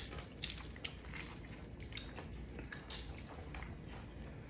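A person chewing a mouthful of homemade chicken burger: faint, irregular small clicks of chewing.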